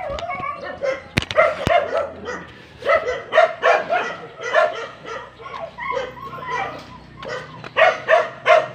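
Dogs barking repeatedly in quick, continuous runs of short barks. Two sharp clicks come about a second in.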